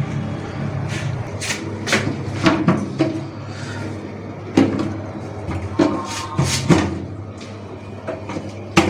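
A plastic lowdown toilet cistern being handled and fitted on the wall: scattered hollow plastic knocks and clacks as the tank and its frame are pushed into place.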